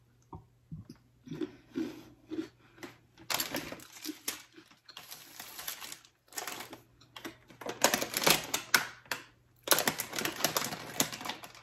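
An Oreo cookie crunching as it is bitten and chewed, then several bursts of crackly crinkling from the plastic Oreo package being handled.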